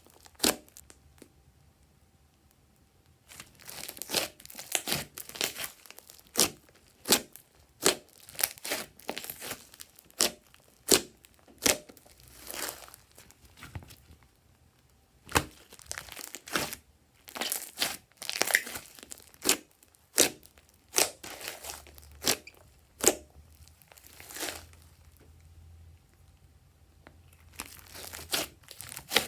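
Glossy slime being squeezed, stretched and poked by hand, giving irregular sticky clicks and crackles in clusters, with a few short pauses.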